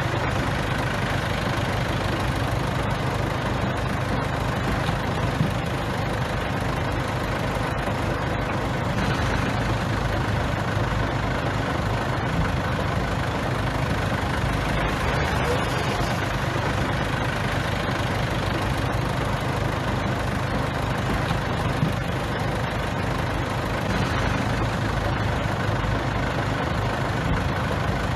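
Bulldozer's heavy diesel engine running steadily, with a constant low drone.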